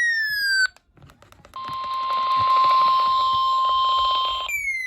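Weather alert radio sounding its warning alarm: a falling electronic sweep tone, then after a short pause a steady single tone over a hiss of radio static for about three seconds, then the falling sweep again near the end. The steady tone is typical of the NOAA Weather Radio warning alarm tone that comes before a severe thunderstorm warning.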